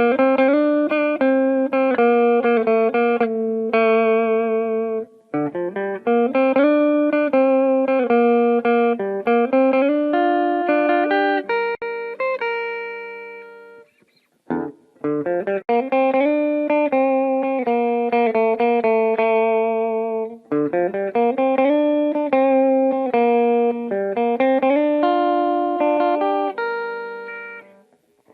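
Squier Classic Vibe Starcaster electric guitar played with its original stock wiring harness: picked notes and chords in phrases, breaking off briefly about five, fourteen and twenty seconds in.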